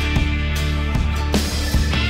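Background music: rock-style track with a steady bass line and a regular drum beat.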